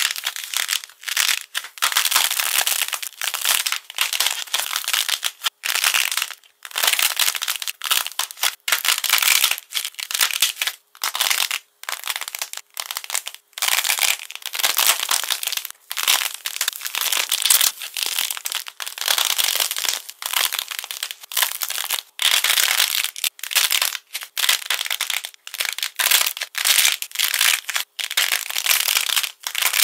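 Hands squeezing and breaking the dried coating on soft clay: crisp crackling and crunching as the crust splits and flakes, in repeated bursts with short pauses between squeezes.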